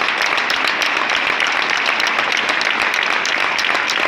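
A large crowd applauding, with dense, steady clapping.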